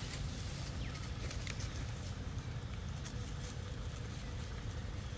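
Outdoor forest ambience: a steady low wind rumble on the microphone, scattered light clicks and rustles, and a couple of faint short chirps about a second and a half in.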